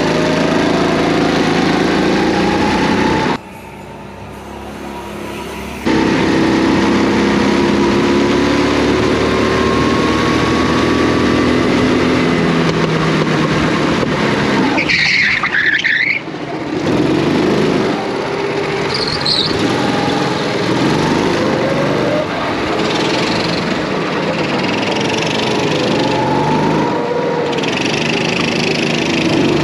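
Rental go-kart's small petrol engine running hard, its pitch rising and falling as the kart speeds up and slows through the corners, with other karts' engines around it. A brief high squeal comes about halfway through.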